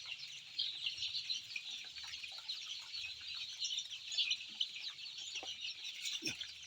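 A large flock of young chicks peeping continuously, many short high cheeps overlapping into a steady chorus.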